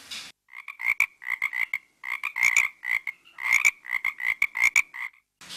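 Frog croaking sound effect: runs of short, quick croaks, in about five bursts with short gaps between them.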